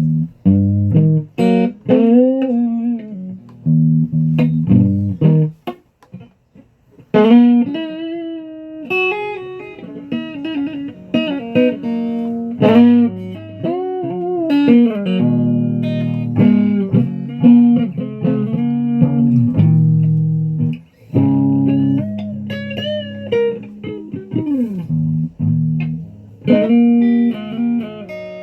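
Guitar played by hand, with single picked notes and chords and several notes bent up and down in pitch, pausing briefly twice.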